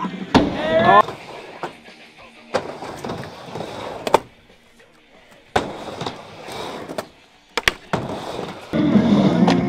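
Skateboard riding a vert ramp: wheels rolling with several sharp clacks of the board striking the ramp and coping, quieter stretches between them. Voices in the first second, and music comes in near the end.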